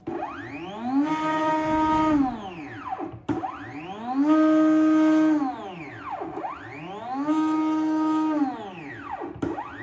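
Stepper motors of a DIY wooden CNC router driving its long Y axis in jog moves: a multi-tone whine that rises in pitch as each move speeds up, holds steady, then falls as it slows to a stop, three times over.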